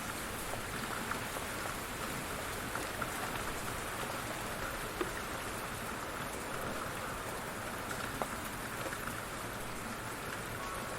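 Light rain falling steadily, an even patter with occasional louder individual drops.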